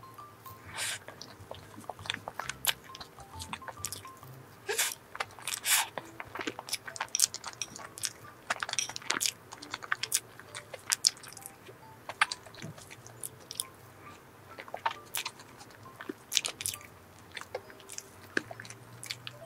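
Close-miked chewing and wet mouth sounds of someone eating chocolate cream cake, with many irregular sharp smacks and clicks.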